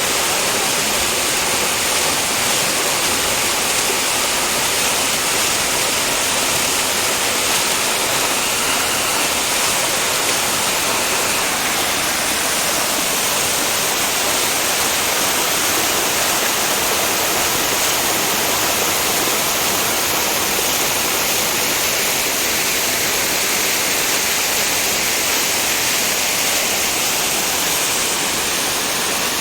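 Waterfall: a steady rush of falling water, hiss-like and unchanging, strongest in the upper range.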